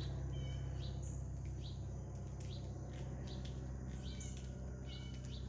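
Small birds chirping outdoors: many short, repeated chirps throughout, over a steady low hum.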